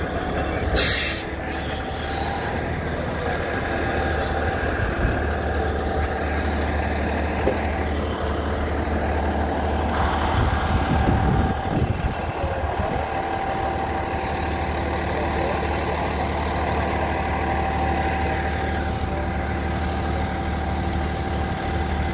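Fire engine's diesel engine idling steadily with a low hum, and a short sharp hiss of air about a second in.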